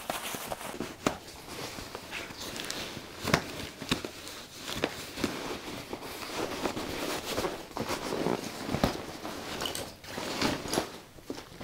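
Camping gear being stuffed into a backpack: fabric and stuff sacks rustling and rubbing, with scattered light knocks and clicks.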